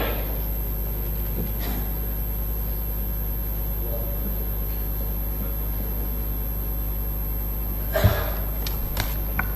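Steady low electrical hum with a sharp thump about eight seconds in and a couple of faint clicks just after.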